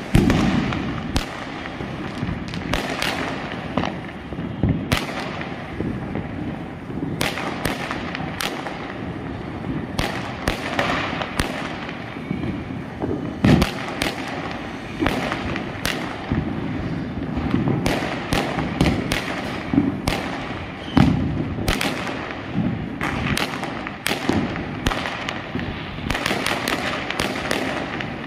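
Many firecrackers and aerial fireworks going off together: a near-continuous, irregular run of sharp bangs and crackles, with a few louder bangs standing out at the start and about halfway through.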